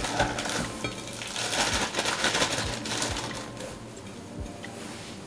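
Plastic zip-top bag crinkling and rustling as partly thawed, clumpy dog food is squeezed out of it into a stainless steel bowl. The crinkling is busiest for the first three seconds, then thins out.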